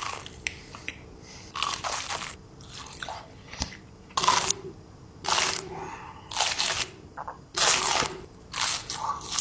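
Close-miked chewing of crisp food: loud crunches come about once a second as someone bites and chews.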